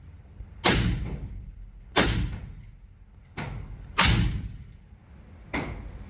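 Suppressed gunshots at an indoor range: three sharp shots about a second or two apart, each with a long echoing tail, then a quieter shot near the end.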